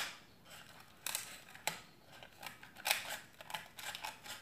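Scissors snipping through a plastic bowl to cut a circle out of it: a few separate sharp cuts, roughly a second apart.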